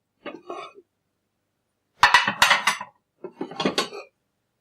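Dishes being stacked, clattering and clinking against one another in three quick bunches: a faint one at the start, a louder one about two seconds in, and another shortly after.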